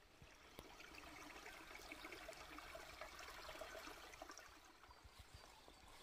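Faint trickle of running water, swelling a little in the middle.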